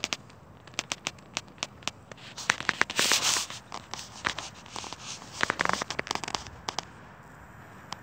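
Close handling noise from a phone held against a cat and clothing: scattered sharp clicks and crackles, with a louder rustling hiss about three seconds in and another cluster of rustles and clicks near six seconds.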